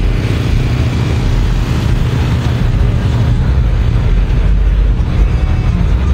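Car engine running close by: a steady low rumble.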